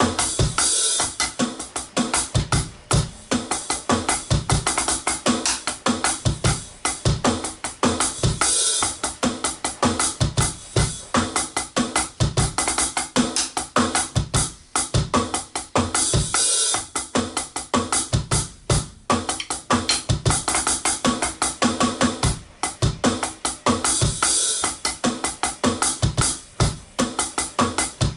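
Drum kit playing a groove in 5/4: steady bass drum, snare and hi-hat strokes, with a cymbal crash coming round about every eight seconds.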